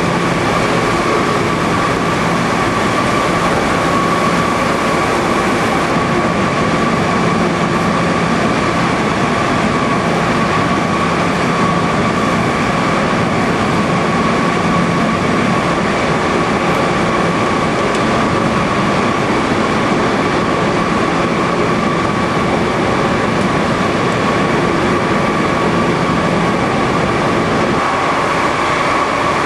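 Steady, loud din of fruit-processing plant machinery running, with a constant whine through it.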